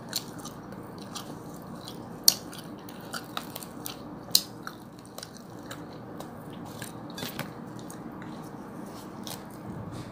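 Close-up chewing of soft kuboos flatbread: wet mouth clicks and smacks at an uneven pace, a few sharper ones standing out.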